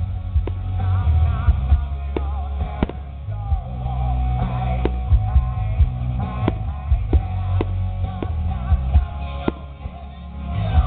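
Rock music with singing and drums, with the sharp irregular bangs of aerial firework shells bursting over it, about one a second.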